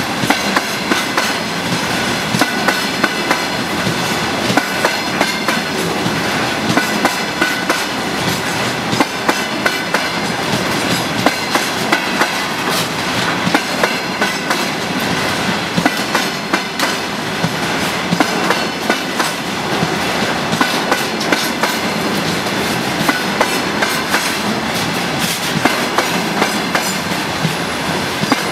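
Freight train wagons rolling past, steel wheels clacking over rail joints in a regular rhythm of about one knock a second over the continuous rumble of the train.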